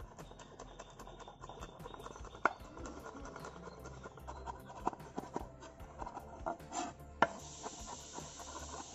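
A steel cleaver chopping green chillies on a wooden board: quick knocks of the blade on the wood, several a second, with a few harder strikes. A steady hiss comes in near the end.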